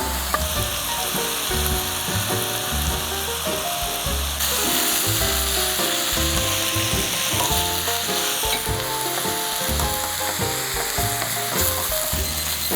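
Sliced onion and carrot sizzling in hot oil with seasoned meat in a frying pan as they are stir-fried.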